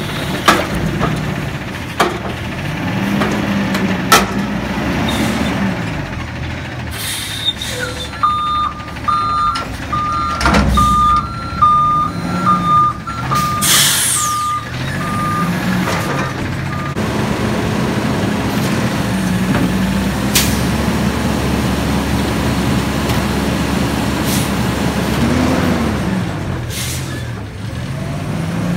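McNeilus front-loader garbage truck on compressed natural gas working a dumpster: the engine revs up and down in repeated swells as the hydraulic arms lift, shake and lower the steel container, with metal bangs and knocks. Reversing beeps run through the middle, and an air-brake hiss comes about halfway through.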